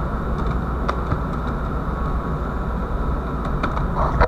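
Steady low hum of a ship's machinery on deck, with a few faint clicks.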